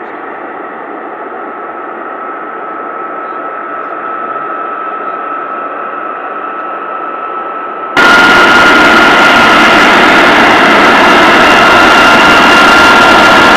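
F-35B Lightning II jets taxiing, their Pratt & Whitney F135 turbofans giving a steady high whine over a rushing noise that slowly grows louder. About eight seconds in it jumps abruptly to much louder and fuller, with the whine stronger.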